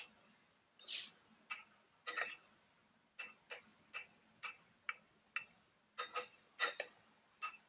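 A cooking utensil tapping and clinking against a pot while garlic is stirred in olive oil, about a dozen light, irregular taps.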